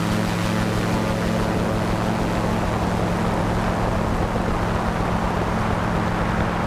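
Gyrocopter's engine and pusher propeller running steadily at a constant pitch as it rolls along the runway, with a rush of wind noise over it.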